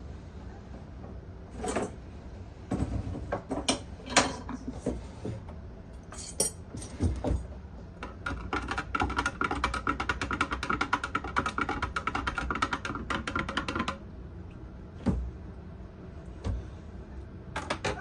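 Kitchenware knocking and clinking a few times, then about six seconds of rapid, even clinking of a metal utensil against a ringing container, like a spoon stirring sugar syrup into lemon juice.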